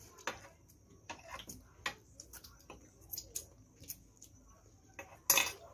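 Mukbang eating sounds at a close microphone: chewing and mouth clicks coming irregularly, with one louder, noisier rush about five seconds in.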